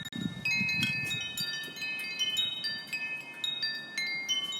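Wind chimes ringing, many high tones struck one after another and overlapping as they ring on.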